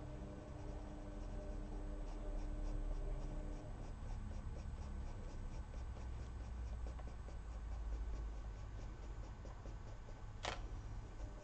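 Prismacolor coloured pencil scratching on paper in quick repeated strokes, over a steady low hum. One sharp click comes about ten seconds in.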